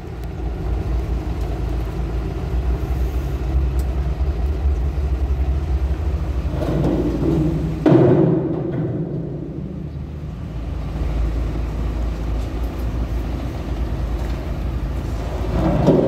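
Heavy diesel truck engine running with a deep, steady rumble, swelling louder about seven seconds in and again near the end.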